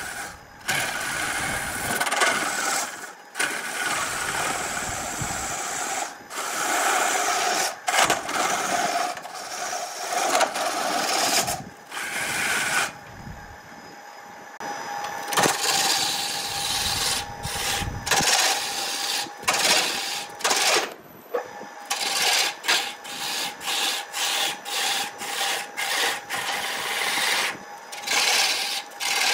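Wood lathe spinning a thick wooden cylinder while a hand-held turning tool cuts into it: a loud scraping, hissing cut broken by many brief gaps. Around the middle the tool comes off the wood for a couple of seconds and the sound drops to the quieter running of the lathe, then the cutting resumes.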